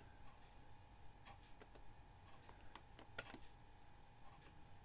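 Near silence: faint room tone with a low steady hum and a few scattered soft clicks.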